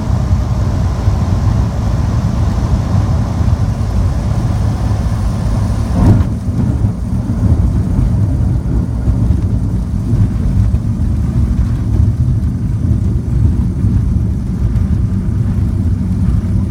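Cessna 210's six-cylinder piston engine and propeller drone low and steady, heard from inside the cabin through a grass-strip landing. About six seconds in a single thump marks the wheels touching down. After that the higher rushing noise drops away and the engine runs on at low power through the rollout.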